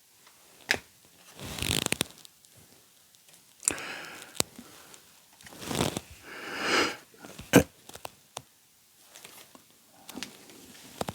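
A trading-card pack's foil wrapper being torn open and crinkled, in several short bursts of rustling with a few sharp clicks between.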